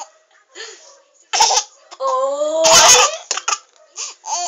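Baby laughing in short bursts, with one longer, louder laugh about two to three seconds in.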